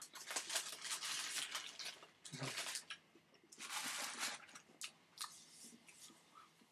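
Paper food wrapper being crumpled and crinkled: a long crackling rustle for the first two seconds, then two shorter bursts about two and a half and four seconds in, with scattered small clicks after.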